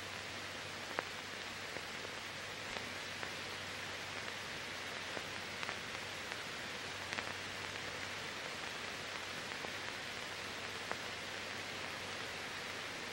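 Steady hiss with scattered small clicks and a faint low hum: the noise floor of a transfer of silent archive film, with no recorded sound.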